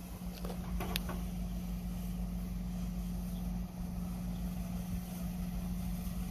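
Diesel locomotive engines of an approaching Union Pacific freight train, a steady low drone as the train comes on slowly.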